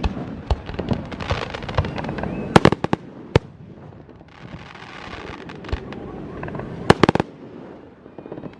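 Fireworks going off: a quick cluster of sharp bangs about two and a half seconds in, a lull filled with crackling hiss, then another cluster of bangs about seven seconds in.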